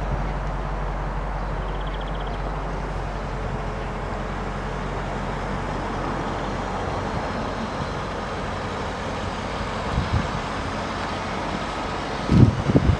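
A vehicle engine idling steadily with a low, even hum, heard outdoors with some wind on the microphone. There are brief low bumps about ten seconds in, and louder ones near the end.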